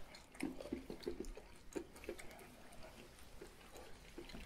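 Faint crunching of a heavily seasoned peanut being chewed: a run of small crisp clicks through the first two seconds, then only a few scattered ones.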